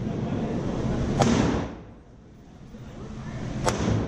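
Two gunshots, about two and a half seconds apart, each a sharp crack with a short echo.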